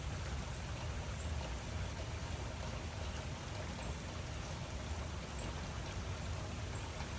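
Steady rain falling, an even hiss with a deep low rumble beneath it and occasional faint drop ticks.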